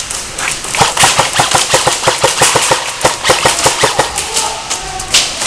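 Airsoft guns firing rapid strings of shots, a dense crackle of sharp clicks from about a second in to about four seconds in, thinning out toward the end.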